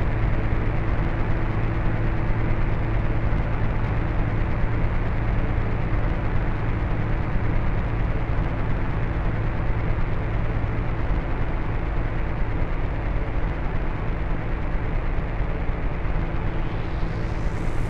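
Steady, dense low rumble with a deep hum, a sound-design drone. Near the end a faint high whoosh swells in.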